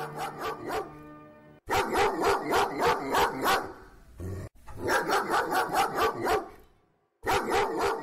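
A dog barking in quick runs of about five barks a second, in three bursts of roughly two seconds each with short pauses between them.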